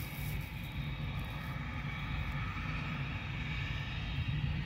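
Jet aircraft turbine running steadily: a high whine over a low rumble.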